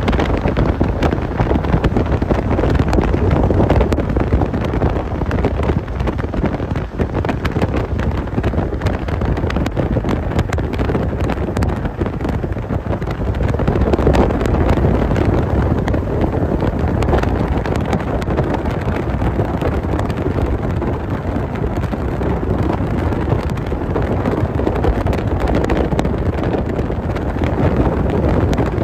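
Steady wind rush buffeting the microphone of a camera held outside a Mahindra Bolero's window at highway speed, with tyre and road noise beneath.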